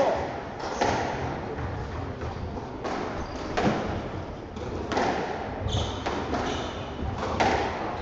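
Squash ball being struck back and forth in a rally: sharp racket hits and ball impacts on the court walls, irregularly spaced about one to two seconds apart, echoing in the enclosed court.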